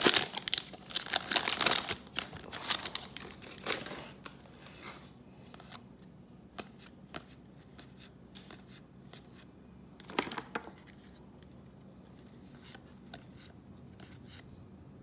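A foil trading-card pack being torn open and crinkled for the first few seconds, then soft scattered clicks and taps as the stack of cards is handled and slid, with a brief louder rustle about ten seconds in.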